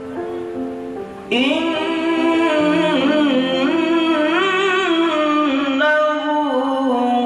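Music: sustained instrumental notes, joined about a second in by a solo voice singing long, ornamented, wavering melodic lines over them.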